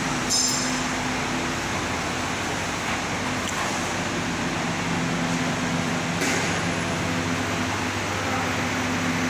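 Motors of a double-head aluminium cutting saw running steadily with a constant hum. There is a brief high metallic clink about a third of a second in and a short sharper noise near six seconds.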